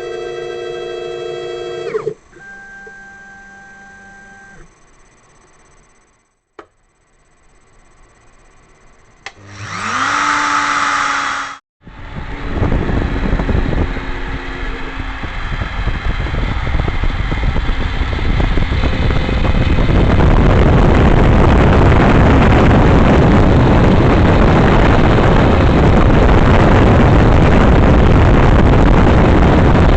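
CNC router spindle speeding up with a rising whine about ten seconds in, then cutting 16 mm MDF: a steady noise that builds over several seconds and holds loud and even for the second half.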